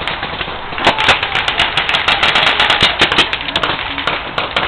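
Paintball markers firing in rapid, irregular volleys, many sharp pops a second from several guns overlapping.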